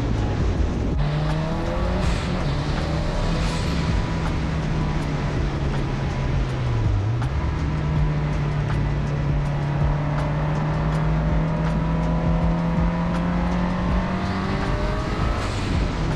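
A 500 hp wagon's engine running hard on a race track, its note held steady at high revs. About halfway through the pitch dips briefly, then climbs back.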